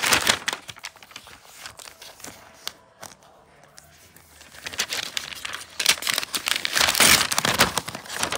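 Paper protective wrap on a new MacBook Air crinkling and rustling as the laptop is handled and the wrap is pulled at. There is a burst of rustling at the start, a quieter stretch, then denser, louder crinkling from about five seconds in.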